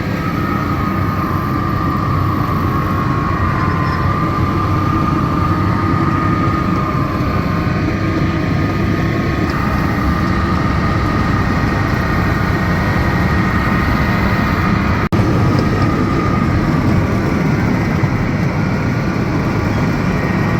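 Miniature ride-on train running along its track: a steady rumble with a thin, steady high whine over it. The sound drops out for an instant about fifteen seconds in.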